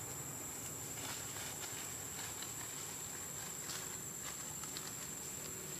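Steady high-pitched drone of insects in the forest, with faint scattered ticks and rustles.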